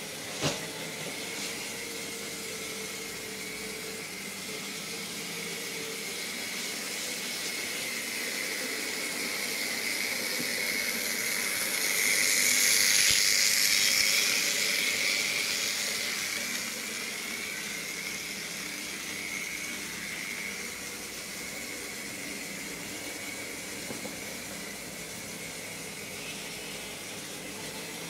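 Märklin model steam locomotive running on the track, a steady motor whine and wheel hiss that grows louder as it passes close by in the middle, then fades as it runs off. A single sharp click just after the start.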